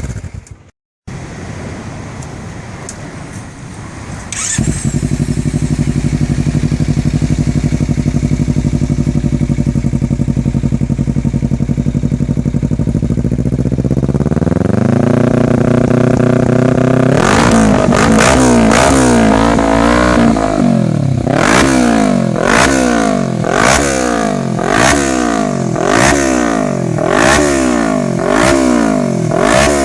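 2013 Kawasaki Ninja 300's parallel-twin engine through a Remus Okami aftermarket exhaust, idling steadily, then brought up to a higher steady speed. In the second half it is blipped repeatedly, about one rev every second and a bit, the pitch rising and falling with each blip.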